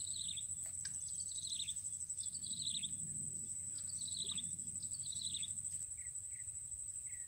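A bird repeatedly sings short, falling whistled phrases over a steady high-pitched insect drone. Near the end, a quicker run of short chirps follows, about two a second.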